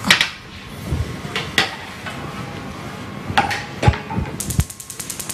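Several separate sharp knocks and clinks of dishes and kitchen utensils being handled and set down on a counter, with a quick run of light rattling ticks near the end.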